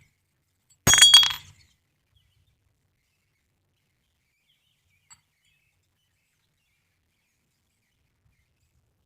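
A single sharp, ringing metallic clink about a second in, as steel parts of a disassembled scroll compressor knock together, with one faint tick a few seconds later.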